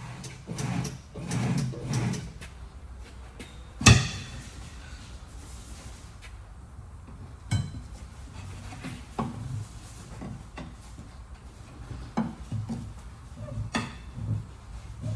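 Sharp knocks and clanks from tire-mounting work on a wheel, one loud knock about four seconds in, then several lighter ones a second or two apart.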